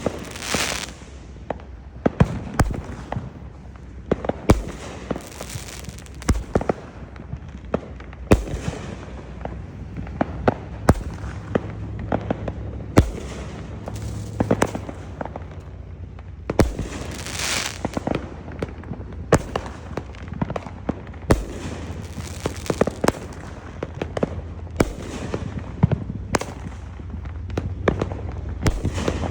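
Derby Blast consumer firework going off: a continuous barrage of sharp bangs, several a second at irregular spacing, with a few longer hissing bursts, one near the start and one about 17 seconds in.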